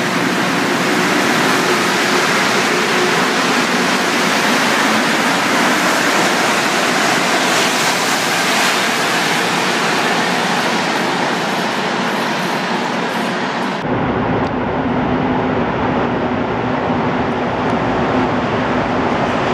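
Rubber-tyred Montreal Metro train pulling out of the station: steady running noise with a faint motor tone. About fourteen seconds in it switches abruptly to a deeper rumble as another train approaches from the tunnel.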